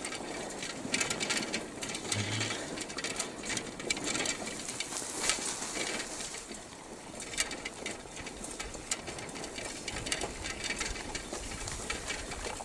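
Running footsteps swishing through grass, with irregular knocks and rustle from a hand-held camera jostled at a run.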